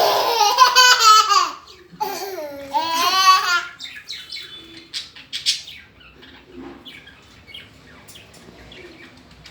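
A toddler gives two loud, high-pitched, wavering squeals in the first few seconds, then small birds chirp faintly.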